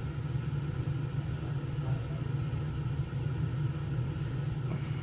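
Steady low hum of workshop ventilation, unchanging throughout. The soldering of the terminal makes no distinct sound over it.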